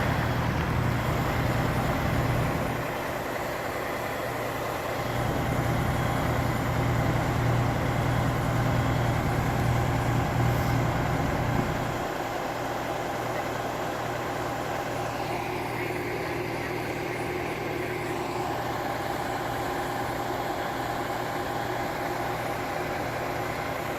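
A vehicle engine idling with a steady hum. The hum eases for a couple of seconds about three seconds in, and drops to a lower level about halfway through.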